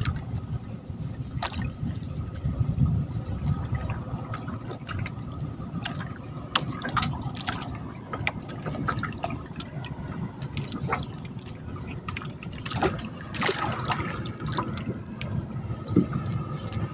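Water sloshing and dripping around a small fishing boat, with scattered small splashes and knocks.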